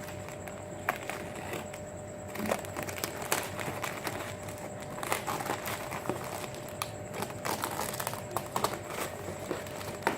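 Packaging being handled and opened: irregular crinkling and rustling with scattered clicks and knocks, busier from about two and a half seconds in.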